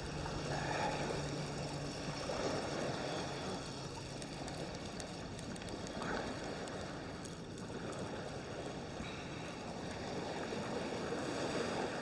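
Small waves washing onto the beach in slow swells, with wind on the microphone.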